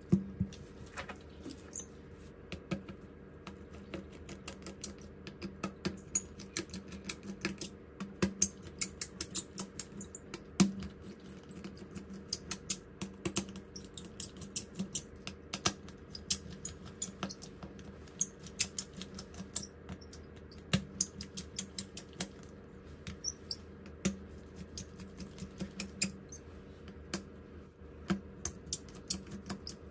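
Many small, irregular clicks and taps of hand tools and parts being handled on a smartphone, like tweezers, a screwdriver or a pry tool on plastic, glass and metal. A low steady hum runs beneath.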